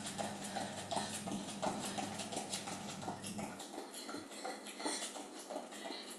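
Running shoes stepping quickly side to side on an exercise mat: a rhythmic patter of footfalls, a few per second. A low steady hum underneath stops about three and a half seconds in.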